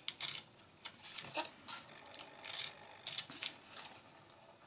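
Scissors cutting up the score lines of a small piece of cardstock: a series of short, quiet snips with brief pauses between them.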